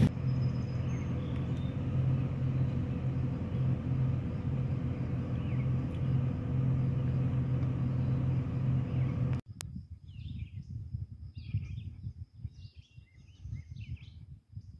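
Steady low rumble of a vehicle on the road, which cuts off abruptly about two-thirds of the way through. After it, wind gusts buffet the microphone and small birds chirp.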